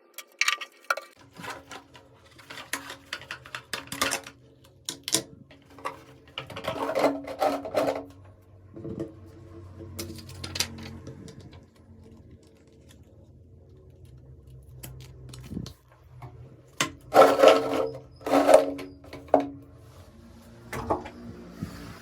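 Hard plastic parts of a toilet brush set and their packaging being handled: irregular clicks, knocks and rustling, with a louder run of knocks near the end, over a faint steady low hum.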